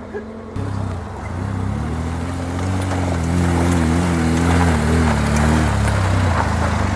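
Off-road 4x4's engine running under load, starting abruptly about half a second in, its pitch rising a little and wavering as the throttle is worked.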